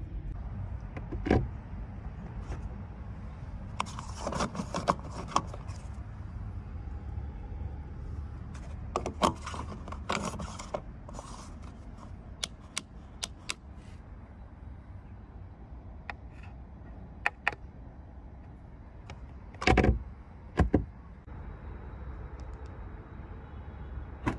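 Scattered small clicks and rattles of hands handling a minivan's tyre valve cap, fuel filler door and filler cap, with two loud clunks near the end, over a steady low rumble.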